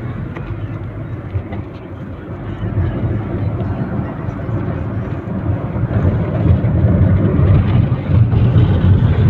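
Road and engine rumble inside a moving vehicle's cabin, growing louder about six seconds in.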